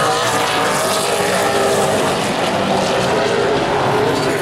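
Pack of super late model stock cars racing on an oval, several V8 engines running hard at once, their pitches shifting slightly as the cars pass.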